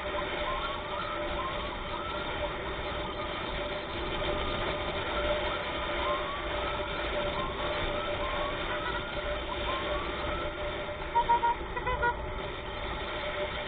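Emergency siren giving short rising whoops, repeated at uneven intervals over steady road and engine noise. Near the end, a quick run of short, loud horn beeps.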